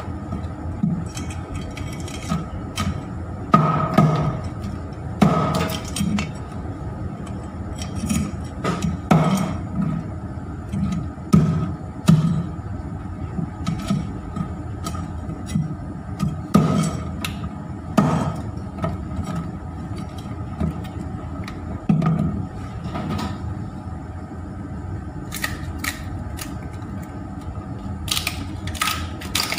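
A meat cleaver chopping through lobster shell onto a wooden cutting board in irregular heavy chops, with a few sharper snips near the end.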